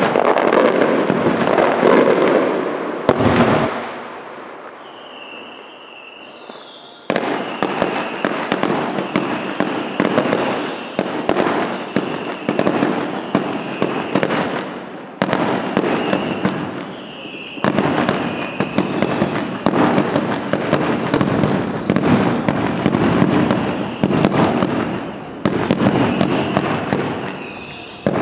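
Aerial fireworks display: rapid crackling and bangs of many shells bursting overhead, with a quieter lull a few seconds in before the barrage starts up again. A high, wavering whistle sounds through much of the later part.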